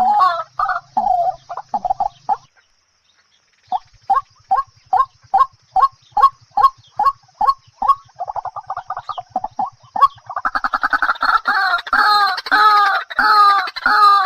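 A bird calling over and over in short clucking notes. The calls break off for about a second, come back as evenly spaced notes about two a second, then turn into a faster, louder run near the end.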